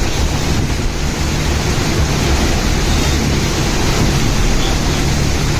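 Steady loud rushing of wind and heavy rain on a phone microphone, with a low rumble underneath.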